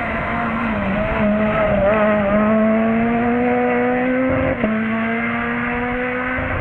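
Rally car engine pulling hard under acceleration, its note climbing steadily. It is broken twice by quick gear changes, about two and a half seconds in and again near four and a half seconds.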